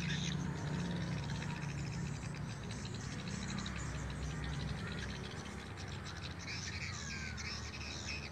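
Swiftlet call sound played from the rooftop speaker of a swiftlet house: rapid, rhythmic, high twittering, joined by swiftlets circling the building, over a steady low hum.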